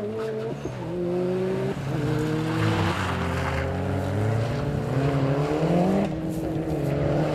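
Mitsubishi Lancer Evolution rally car's turbocharged four-cylinder engine driven hard, its note climbing and then dropping at each of several gear changes. About halfway through there is a rush of tyre and gravel noise as the car slides through a chicane.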